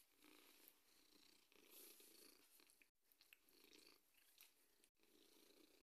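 A domestic cat purring faintly while being stroked, the purr swelling and fading about once a second.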